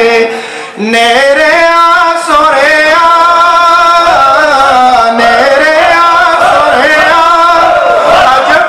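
A man singing a devotional Punjabi naat solo, in long held notes that bend and ornament. There is a short pause for breath just after the start.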